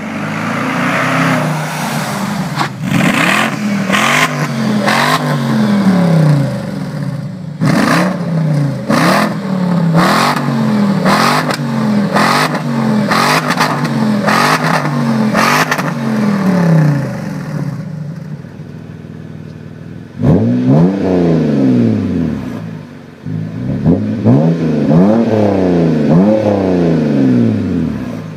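BMW X5 E53 4.4i's V8 exhaust revved over and over in short blips, each rise and fall a little over a second long, with sharp cracks among them. After a brief quieter stretch it cuts abruptly to a BMW E90 325i's inline-six exhaust being revved in similar blips.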